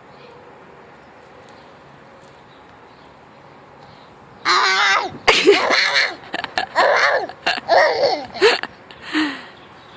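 A young child laughing in a run of high-pitched, wavering squeals and giggles, starting about halfway through and lasting some five seconds.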